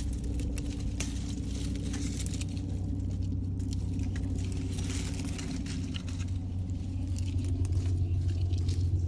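Garden netting and grape bunches rustling and crackling as they are handled, with many light clicks, over a steady low machine hum that gets louder near the end.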